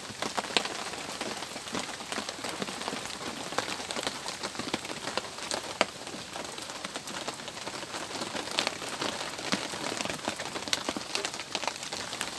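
Heavy rain pouring down, heard from under a camp shelter: a steady hiss dotted with many sharp individual drop hits.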